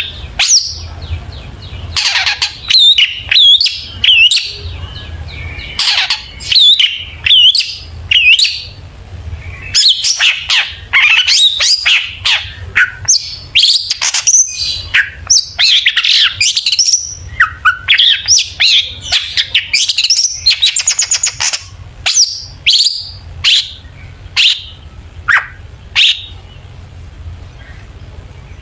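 Long-tailed shrike (cendet) singing a loud, varied song of chirps, fast trills and harsh squawky notes in quick phrases with short pauses between them. Its song is full of 'isian', imitations of other birds' calls.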